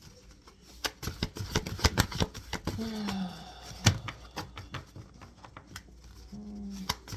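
Tarot deck being shuffled by hand, the cards clicking and snapping irregularly, with two short low hums from a voice, about three seconds in and near the end.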